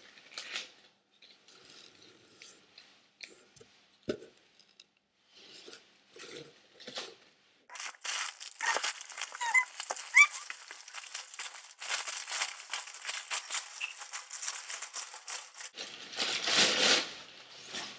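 Crumpled packing paper crinkling and rustling as it is pulled out of a cardboard box: soft, scattered rustles at first, then several seconds of dense crackling, with a louder rustle near the end.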